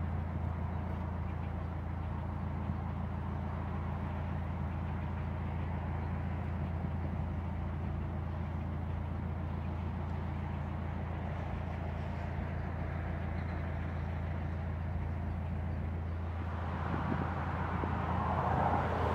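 Narrowboat's diesel engine running steadily at low revs, a constant low hum. Near the end a rush of road traffic swells up over it.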